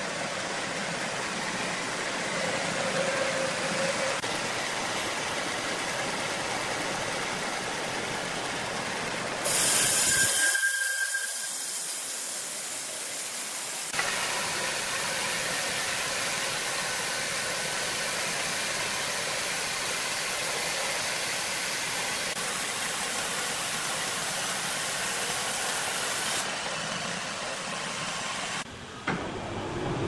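Horizontal band sawmill running, its blade cutting through a large log with a steady hissing machine noise. A brief louder hiss comes about ten seconds in, and the sound changes abruptly a few times.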